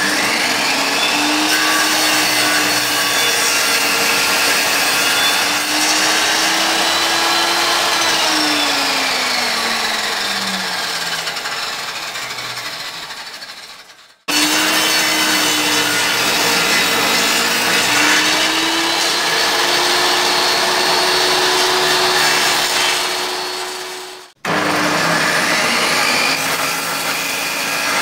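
A homemade table saw, a circular saw mounted under a plywood table, running and ripping pallet-wood strips, its motor pitch dipping and recovering as the blade takes the load. Twice it sinks in pitch and fades as it winds down, then the sound breaks off abruptly and comes back at full speed.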